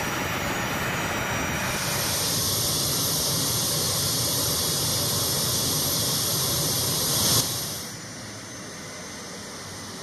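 Military aircraft turbine engines running at high power: a steady noise with a strong high hiss that grows about two seconds in. About seven seconds in it cuts off abruptly to a quieter, duller engine sound.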